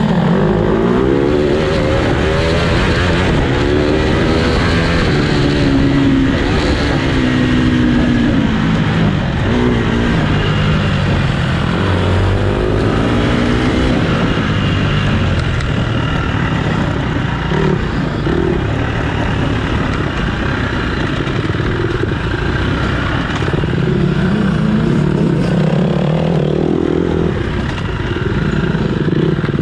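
Dirt bike engines racing, the pitch climbing and dropping over and over as the throttle is worked through the course.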